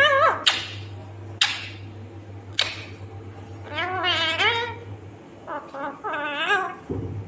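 Ringneck parakeet vocalizing: several short, harsh squawks in the first three seconds, then two longer, wavering, warbling calls about four and six and a half seconds in.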